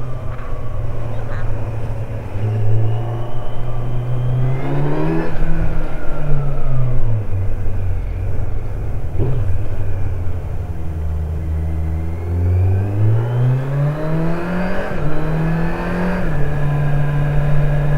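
Kawasaki Z900's inline-four engine under changing throttle. Its note rises briefly, sinks low and eases off, then climbs again under acceleration before settling into a steady higher drone near the end.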